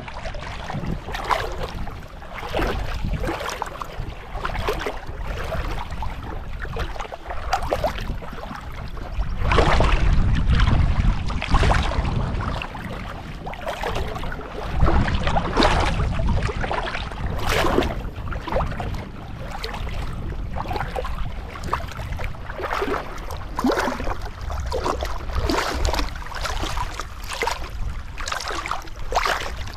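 River water sloshing and splashing close to the microphone: a continuous rushing wash with irregular crackles, swelling louder for a few seconds about a third of the way in and again around the middle.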